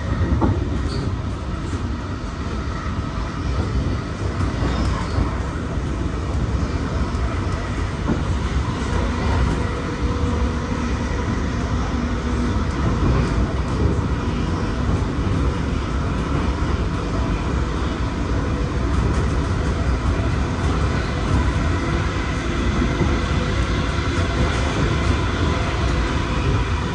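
V set intercity electric train running along the track, a steady rumble of wheels on rail heard from the side of the carriage.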